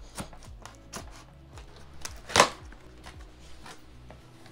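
Cardboard box being opened: a box cutter cutting the packing tape, then the cardboard flaps handled and pulled open, a run of small taps and scrapes with one louder cardboard scrape about two and a half seconds in.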